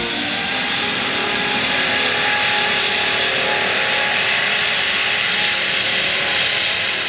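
Finnair Airbus A350's two Rolls-Royce Trent XWB turbofans at high thrust as the airliner rolls down the wet runway on its takeoff run: a steady, loud jet rush.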